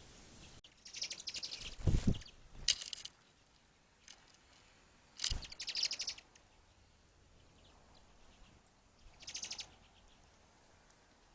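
Small songbirds calling in four short bursts of rapid, chattering high notes. Two dull thumps come in among them, about two and five seconds in.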